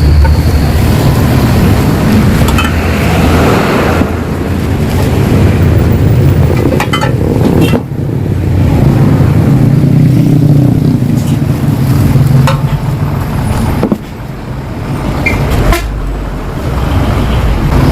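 Road traffic going past, a continuous low rumble that swells and fades, with a few short clicks and knocks.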